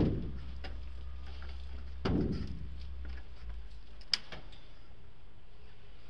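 Knocks of a climber's hands, shoes and body-worn camera against a building's metal and glass facade fins: a thud fading at the start, another thud about two seconds in, and a sharp click about four seconds in, with faint ticks between.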